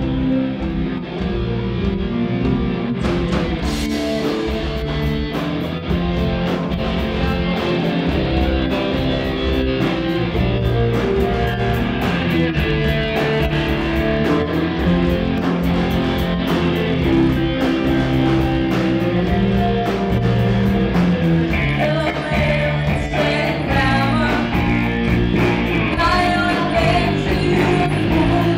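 Live rock band playing: electric guitars and bass, with a drum kit coming in about three seconds in. A woman's lead vocal joins in the last quarter.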